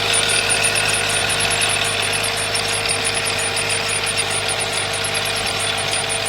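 Mazda CX-7 engine idling with a steady high whistle over it, pulsing rapidly and evenly. The owner suspects a valve rather than the idler pulleys, which have already been replaced; pressing on a valve later stops the squeal.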